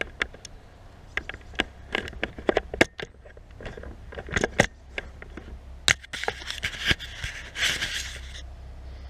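Close handling noise: a string of sharp clicks and knocks, with a burst of jacket fabric rustling from about six to eight seconds in as an arm moves past the microphone.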